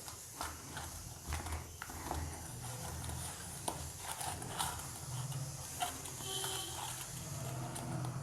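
Hands kneading stiff maida dough for samosas: soft, irregular thumps and squishes, over a low steady hum.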